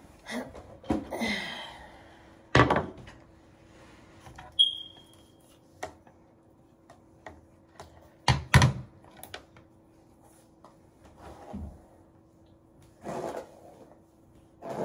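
Household knocks and handling noises: a rustle about a second in, then two loud sharp knocks, one at about two and a half seconds and one at about eight and a half, among smaller clicks. A brief high chirp sounds between them, over a faint steady hum.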